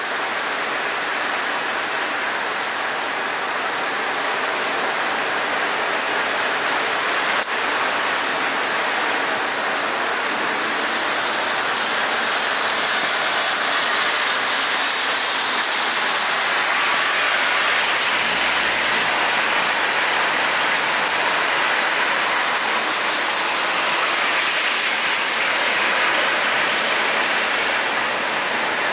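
Steady rain falling on wet pavement: an even hiss of drops splashing on the soaked surface.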